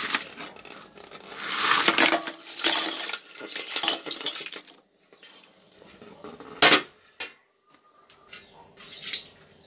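Boiled crabs being scooped out of a metal cooking pan into another vessel: shells clattering and scraping against the metal in repeated bursts, with one sharp knock about seven seconds in.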